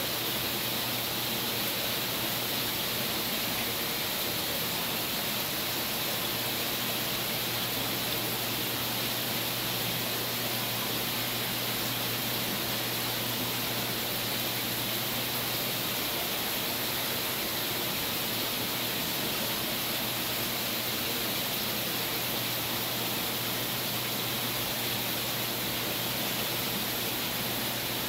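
Steady rushing water noise from the aquarium system's circulating water, with a low steady hum underneath.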